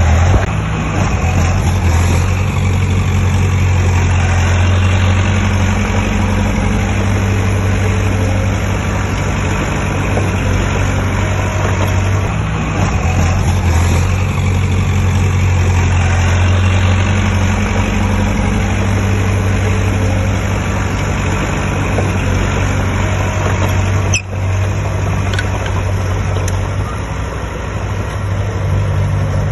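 Heavy diesel engine of construction machinery running steadily, its low drone shifting slightly in pitch as it works, with a short break about 24 seconds in.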